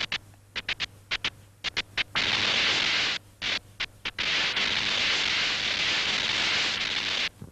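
Sparks snapping across a spark plug's gap: about ten separate sharp snaps, then a steady hiss of continuous sparking for about five seconds, broken by a few short gaps.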